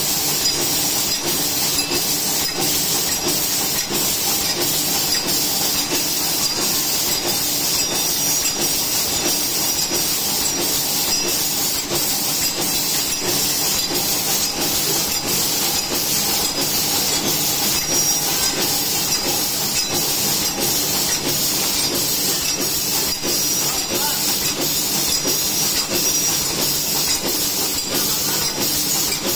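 Automatic plastic flatware and napkin packaging machine running steadily: a continuous hiss with a regular, even ticking from its repeating cycle.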